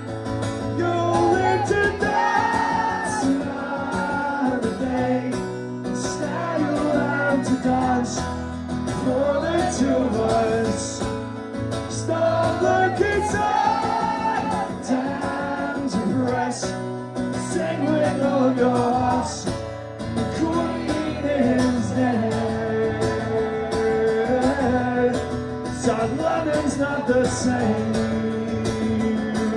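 Live song: a man singing while strumming an acoustic guitar through the venue PA.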